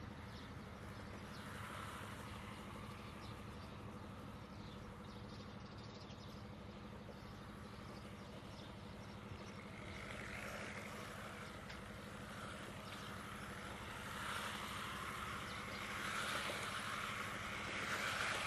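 SG216 Pro 1/16-scale brushless RC drift car running and sliding its drift tyres on artificial turf. It gets louder over the last few seconds as it drifts close by.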